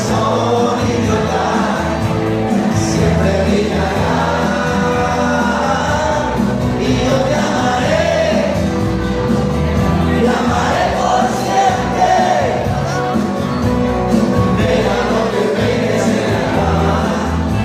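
Loud music with singing played over a nightclub's sound system, the beat steady throughout, with crowd voices mixed in.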